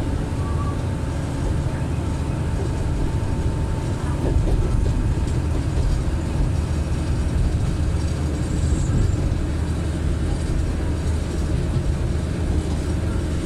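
Kantō Railway KiHa 310 series diesel railcar under way, heard from behind the driver's cab: a steady low rumble of the diesel engine and running gear, with a faint steady hum tone over it, a little louder for a few seconds in the middle.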